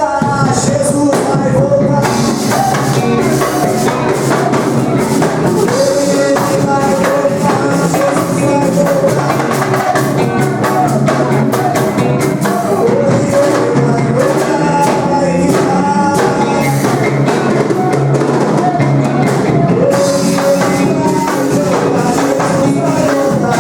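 Christian band music with drum kit and tambourine keeping a steady beat under long held melody notes.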